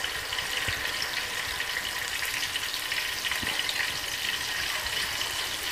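Masala-coated quail deep-frying in hot sunflower oil: a steady, dense sizzle with fine crackling.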